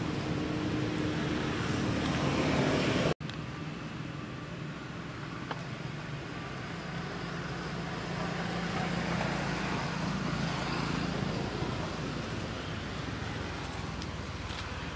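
Steady outdoor background noise with a low hum underneath. It cuts out for an instant about three seconds in.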